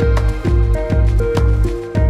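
Background music with a steady beat, pulsing bass and a short repeating melody.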